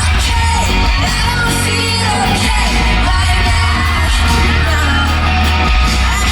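Live pop-rock band playing loudly with a woman singing lead over heavy bass and drums, heard as a concert performance from the audience.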